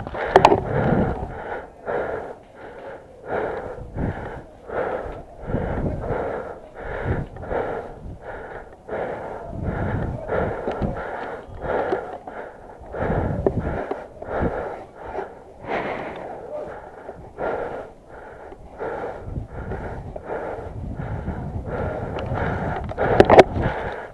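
A person breathing hard and fast right at the microphone, each breath a rasping wheeze, about one or two breaths a second. A few sharp clicks come near the end.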